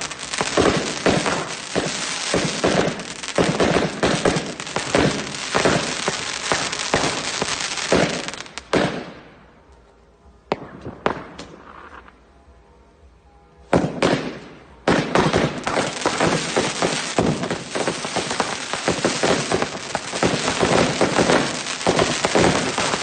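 Fireworks and firecrackers banging and crackling densely without pause. About nine seconds in they thin to a few scattered bangs for some five seconds, then the barrage resumes.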